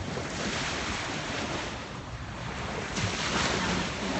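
Small sea waves washing up and breaking along the shoreline, swelling twice, with wind buffeting the microphone.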